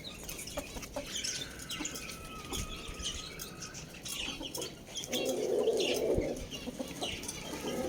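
Chickens clucking and scratching about, with a rooster crowing for about a second and a half starting about five seconds in.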